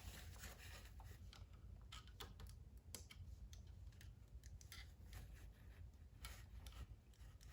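Near silence with a few faint, scattered clicks and scratches from small handling of engine parts while they are oiled.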